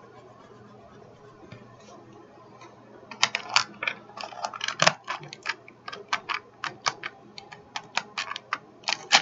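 Arteza woodless watercolour pencils clicking against one another and their hard plastic case, a rapid irregular run of sharp clicks starting about three seconds in, as one pencil is put back and another picked out.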